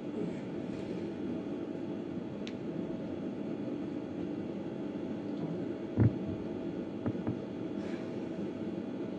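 Steady low room hum with a single sharp thump about six seconds in and two lighter knocks a second later.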